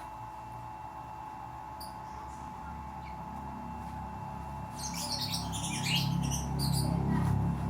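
Small birds chirping in quick, choppy bursts from about five seconds in, over a steady electrical hum and a low rumble that grows louder.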